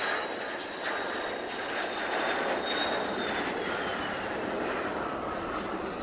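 Mitsubishi F-2 fighter's jet engine: a steady rush with a thin high whine that slides down in pitch about halfway through.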